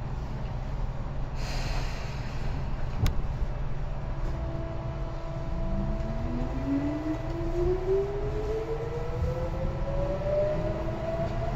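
Tobu 9000 series electric commuter train pulling away: a short burst of air hiss and a click in the first few seconds, then from about four seconds in steady electrical tones from its chopper control and a motor whine rising steadily in pitch as the train gathers speed over the rumble of the running gear.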